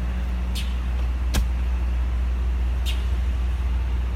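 Low, steady rumble of an idling motor vehicle engine. A few short high chirps and one sharp click sound over it.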